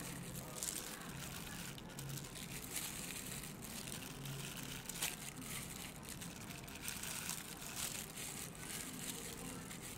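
Plastic food-prep glove rustling and crinkling as a hand sets strawberries into a glass bowl, with a sharp tap about halfway through.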